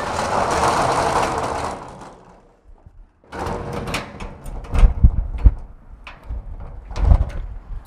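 Metal roll-up storage unit door rattling as it is pulled down shut, for about two seconds. Then a run of sharp metal clanks and heavier knocks as the door latch is fastened and people get into a golf cart.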